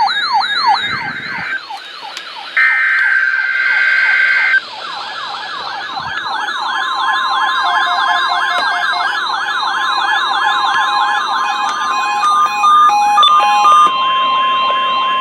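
Weather radio alert receivers going off for a new alert: a fast warbling siren alarm rising and falling about three times a second. Two buzzy digital alert-header bursts come near the start and again about 2.5 s in. From about 6.5 s in, the long steady weather-radio alert tone sounds under the siren, with a few short beeps near the end.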